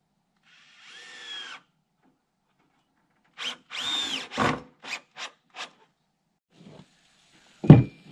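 Power drill running in two short bursts, its motor whine rising and then falling, followed by a few sharp clicks. A loud knock comes near the end.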